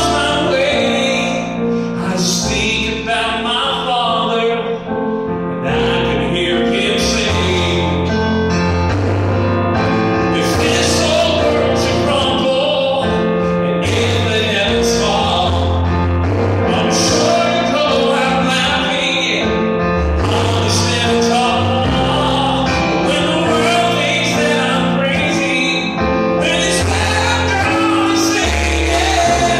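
A man singing a slow song live, accompanying himself on an electronic keyboard with held chords and bass notes.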